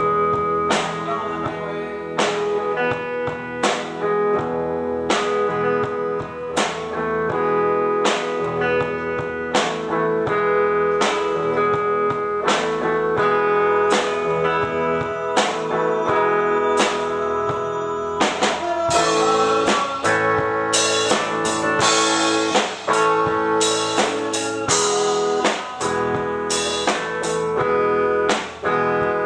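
A small band playing live: electric guitars over a drum kit keeping a steady beat. The cymbals come in louder and busier about two-thirds of the way through.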